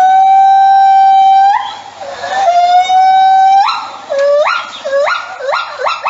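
A small animal crying: one long cry that rises and then holds a steady pitch, a second long cry, then three short rising cries near the end.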